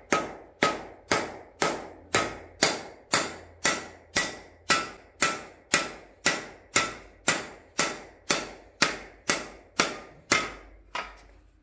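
Mallet striking the end of a cam bearing installer bar in steady, even blows about twice a second, each with a short metallic ring, driving the old rearmost cam bearing out of an LS V8 engine block. The last blow, near the end, is lighter.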